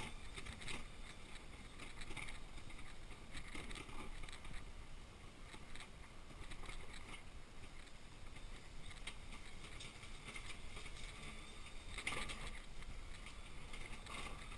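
Wheelchair rolling over rough, cracked asphalt: a steady low rumble from the wheels with a few short knocks and rattles, the loudest about twelve seconds in.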